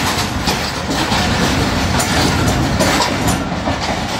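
Passenger train coaches rolling past along a station platform, wheels clacking over the rail joints in a continuous rumble.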